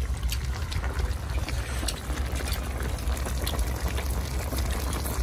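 Hot pot broth simmering, a steady bubbling hiss with small scattered pops over a constant low rumble.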